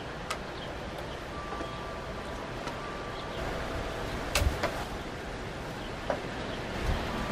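Outdoor ambience: a steady rushing noise, a few sharp clicks with low thumps (the loudest about halfway through), and a faint thin whine that comes and goes.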